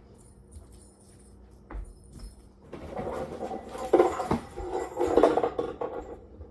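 A box being shaken, its loose contents rattling and clattering for about three seconds, starting a few seconds in.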